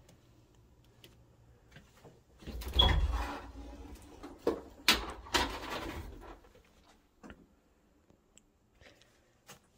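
An interior door being pushed open: a rushing, scraping stretch with a brief squeak, then a few sharp knocks and clicks against the door about halfway through.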